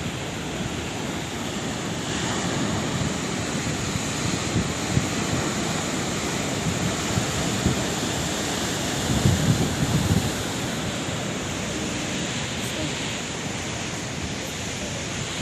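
Sea waves breaking and washing on the shore, a steady rush of surf that swells louder about two-thirds of the way through, with wind buffeting the microphone.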